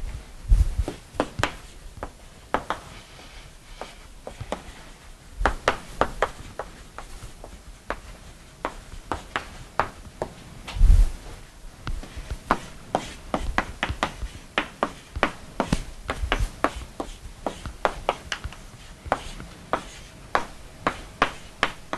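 Chalk writing on a blackboard: irregular quick taps and short scratches as the letters and symbols go down, with a few duller knocks against the board, the loudest about halfway through.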